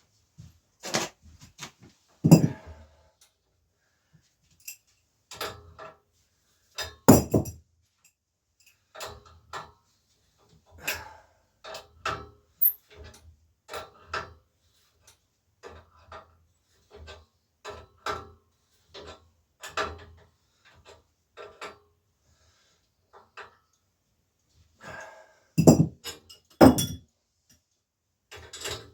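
Metal tools clinking and knocking on a bicycle's bottom bracket while it is worked loose: irregular metallic knocks, some ringing briefly, with a few harder strikes early on and a close pair near the end.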